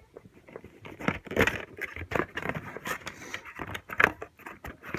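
Packaging being handled and opened, irregular crinkling, rustling and clicks, as a boxed NRG quick release lock is unwrapped.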